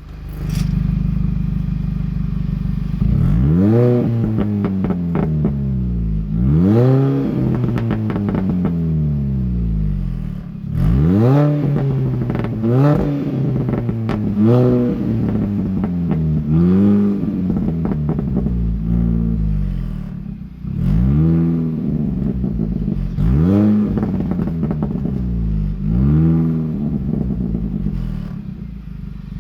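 2006 Mini Cooper S's supercharged 1.6-litre four-cylinder, through an exhaust with a muffler bypass, idling and then blipped about ten times. Each rev rises sharply and falls back to idle, with crackles as the revs drop.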